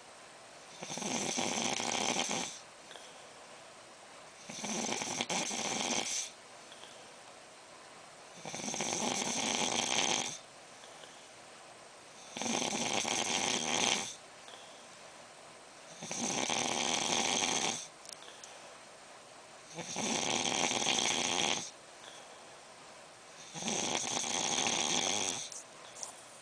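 A man snoring in deep sleep: seven long, loud snores at an even pace, one about every four seconds, each lasting about a second and a half, with quiet breathing between them.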